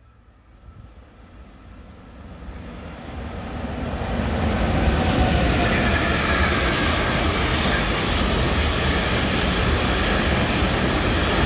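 ÖBB Reihe 1016 Taurus electric locomotive approaching and passing at speed with a freight train of pocket wagons carrying semi-trailers. Wheels roll on the rails, growing louder over the first four seconds or so, then a steady rumble and rush of the wagons going by.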